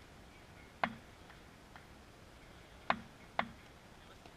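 A cricket bat tapped on the hard court surface at the crease: three sharp knocks, one about a second in and two close together near the end.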